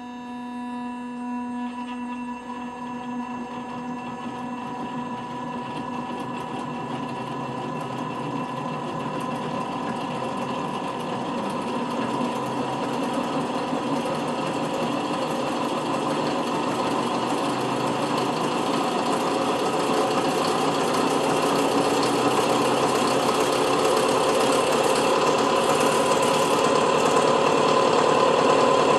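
Electric motor spinning up the electrospinner's metal collector drum, running with a steady hum and whine that grows steadily louder as the drum is brought up to speed.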